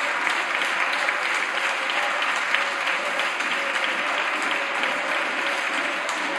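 Steady applause from deputies in a parliamentary chamber, many hands clapping at once.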